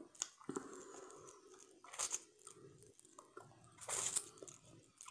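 Faint blue crab shell crunching and cracking as the meat is picked out with the fingers, with soft biting and chewing at the mouth. A few short crunches, the loudest about four seconds in.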